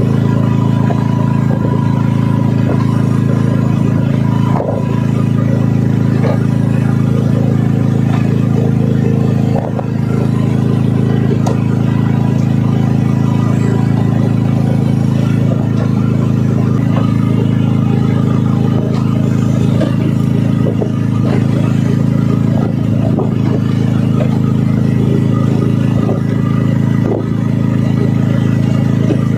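Engine on a fishing boat running steadily at constant speed: a loud, even, low drone, with a few faint knocks over it.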